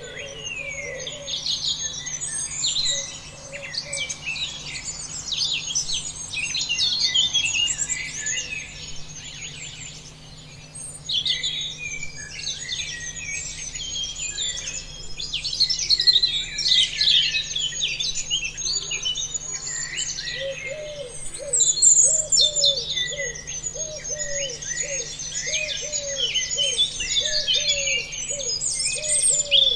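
Dense chorus of many small birds chirping and singing, overlapping throughout. In the second half a lower call repeats about once or twice a second beneath the chirping.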